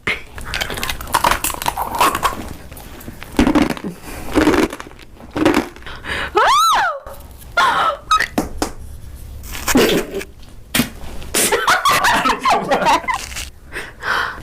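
Close-up eating sounds: sharp crunches and wet mouth noises, mixed with non-verbal vocal reactions such as giggles, and a brief squeal whose pitch rises and falls about halfway through.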